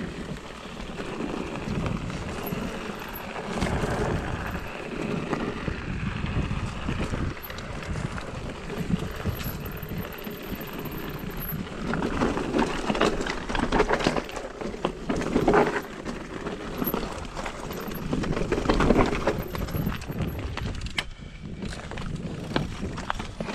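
Mountain bike ridden over a rough, stony trail: tyres crunching on loose rock while the bike rattles and clatters over bumps, with the knocks coming thicker and louder about halfway through.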